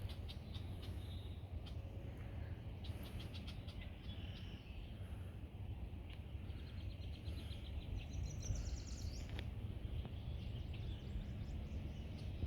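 Marsh ambience: a steady low rumble of wind on the microphone with birds calling over it. There are a few quick chattering trills, and a higher call about two-thirds of the way in.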